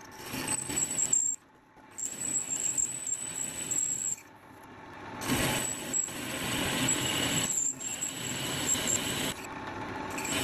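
Metal lathe running with a cutting tool parting off a grooved metal pulley, a steady scraping hiss with a thin high whine, broken off abruptly several times.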